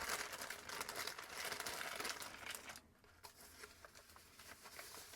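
Packaging crinkling and rustling as an item is unwrapped by hand, dense for about three seconds, then fainter rustles and a few light ticks.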